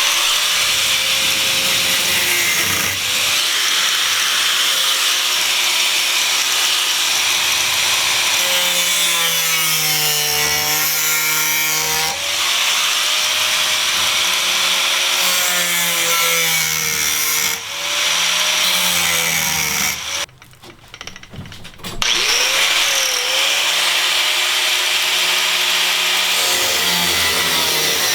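Corded power tool cutting rusted sheet steel out of a school bus floor. Its motor runs steadily, its pitch dipping and recovering under load. About twenty seconds in it stops for a couple of seconds, then spins back up and cuts on.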